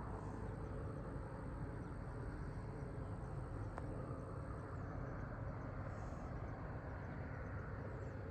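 Rural outdoor ambience: a steady low rumble, with a thin high insect trill that stops about halfway through and a couple of faint high chirps near the end.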